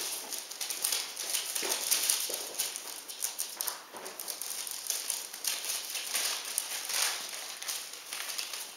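Newspaper lining a puppy pen rustling and crinkling under the paws of a mother dog and her puppies as they move about, a quick, irregular scratchy patter.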